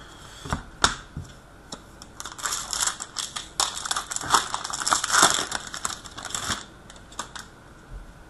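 Crinkling and crumpling of trading-card pack wrapping being handled, with a few sharp clicks in the first second.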